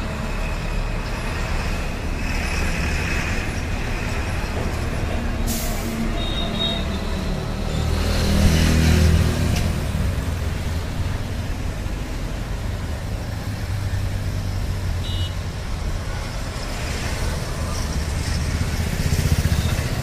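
Street traffic: motorcycles and other small vehicles running past with a steady low rumble. One passes loudly about eight to nine seconds in and another near the end. There is a sharp click a little after five seconds and a couple of very short high beeps.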